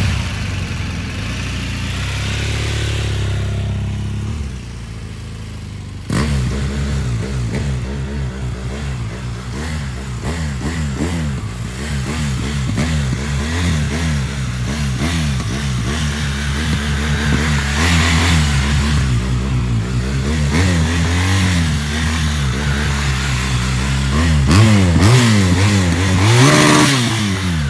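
Motorcycle engine revved up and down over and over while the rider slips the clutch to creep through a very slow, tight turn. The clutch, not the throttle, limits the power. The engine note steps up louder about six seconds in and ends with one big rise and fall of the revs.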